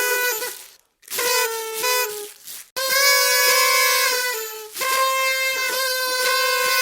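Several party horns (plastic toy trumpets) blaring together in long, buzzy blasts, with brief breaks about a second in and again near three seconds, then one continuous blast to the end.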